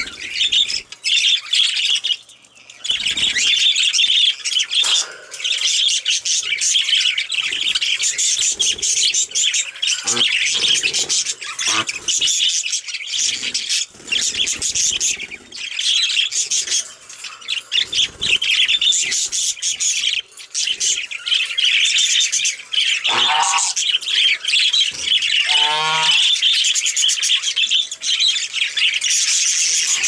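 Male budgerigars chattering and chirping almost without pause, with short squawks mixed in, while they flap and splash in a metal water bowl.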